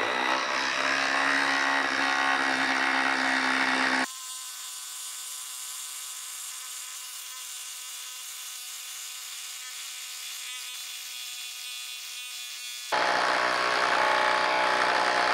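DeWalt DCF887 20V XR impact driver hammering a 6-inch lag screw into a dry log, on its third speed and under heavy load. About four seconds in, the sound turns quieter and thinner for some nine seconds, then comes back at full loudness near the end.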